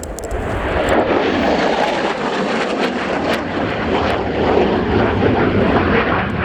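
Jet noise from an F-35B Lightning's single Pratt & Whitney F135 turbofan as it flies past. It swells within the first second, then holds as a loud, steady rush with a crackle through it.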